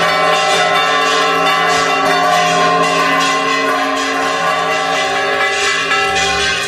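Bells ringing in a continuous peal, strokes following close on one another while their tones hang on and overlap.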